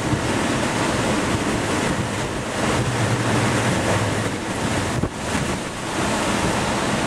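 Hurricane-force wind gusting hard over the microphone, a loud, continuous rush that eases briefly about five seconds in.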